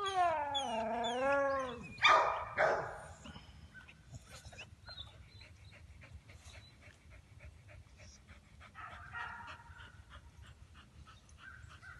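American pit bull terrier giving a drawn-out whine that falls and wavers in pitch, then two sharp barks about two seconds in. After that only faint clicks and rattles are heard.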